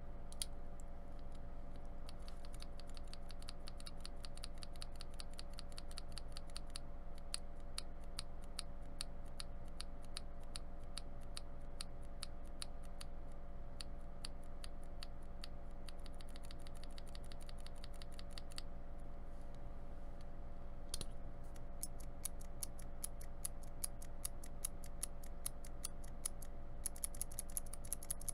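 Rapid typing on YMDK PBT keycaps fitted to Cherry MX-style switches: a fast run of keystroke clicks, many a second, with brief pauses about a third of the way in and again around two-thirds. A steady low hum runs underneath.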